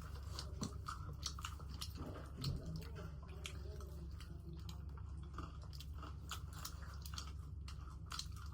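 Close-miked chewing and biting of crispy fried chicken: a run of small, irregular crunches and clicks of the breaded coating, with a steady low hum underneath.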